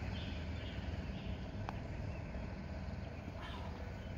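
A single light click of a putter striking a golf ball, about one and a half seconds in, over steady outdoor ambience with a low rumble and faint bird chirps.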